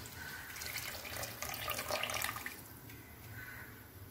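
Coconut milk poured from a steel bowl onto rice in a pressure cooker: a steady splashing pour that tails off in the second half.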